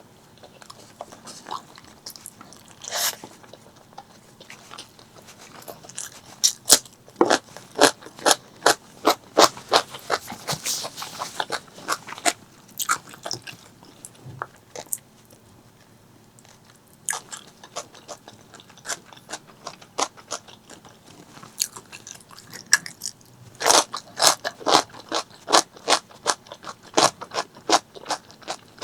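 Close-miked chewing and biting of spicy pork leg curry with rice, in runs of quick, sharp mouth clicks with a quieter pause of a few seconds midway.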